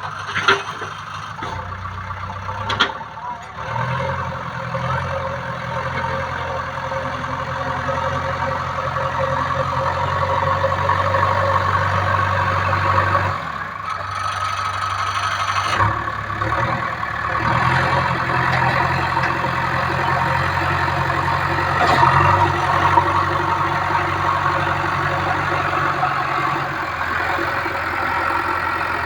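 Backhoe loader's diesel engine running steadily, its engine note shifting up and down several times as the machine works, with a few sharp knocks along the way.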